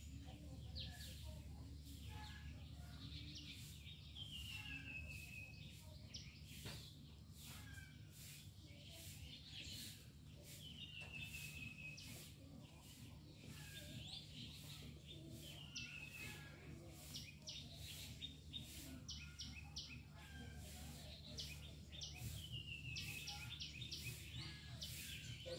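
Wild birds calling: a downward-sliding whistle repeats every few seconds among short high chirps, over a steady low hum.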